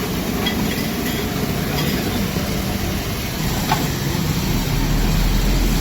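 Steady street noise with a low rumble that swells near the end, like traffic passing.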